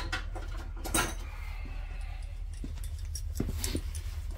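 A sharp click about a second in and a few light metallic ticks later on, hand tools being handled, over a steady low hum.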